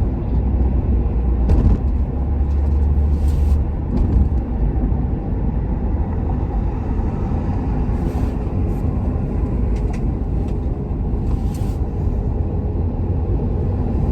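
Steady road and engine rumble inside the cab of a moving pickup truck.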